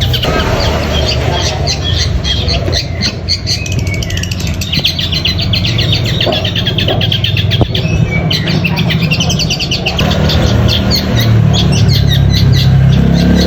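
Long-tailed shrike (cendet) singing in long runs of fast, high chattering notes, many a second. It is a bird coming back into full song (gacor) after the stress of a long journey.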